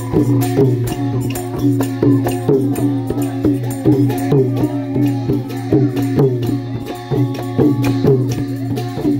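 Thai klong yao long-drum ensemble playing a steady, even processional rhythm: long drums beating short strokes that drop in pitch, with sharp cymbal clashes on the beat over a steady low ringing tone.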